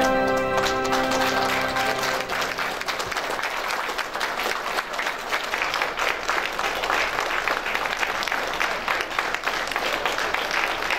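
A crowd applauding steadily, with music under it that fades out about two seconds in.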